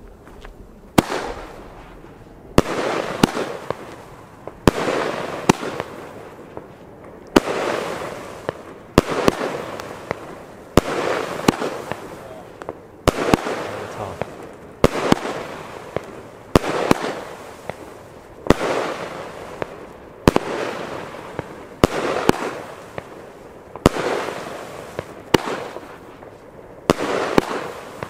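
Weco Firefly fireworks cake firing shot after shot, about one every second or so. Each shot is a sharp launch crack followed by about a second of dense crackle as its stars break apart.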